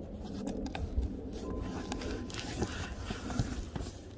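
Hands handling a cardboard shipping box and picking at its packing tape: faint scrapes and small taps on the cardboard over a steady low rumble.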